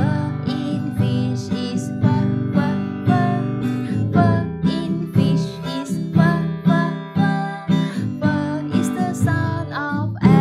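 Acoustic guitar strumming chords in a steady rhythm, a short instrumental stretch of the accompaniment to a children's phonics song.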